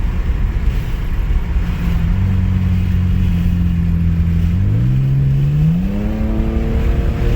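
Cadillac ATS with a muffler delete, exhaust droning steadily at cruise; a little past halfway the engine note rises smoothly as the car accelerates, then holds at a higher pitch.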